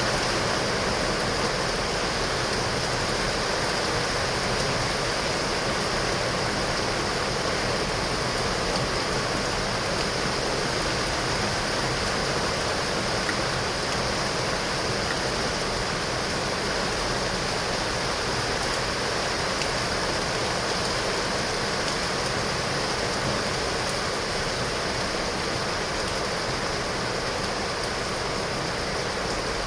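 Heavy rain falling steadily on window glass: a constant, even hiss with no thunderclaps or other sudden sounds.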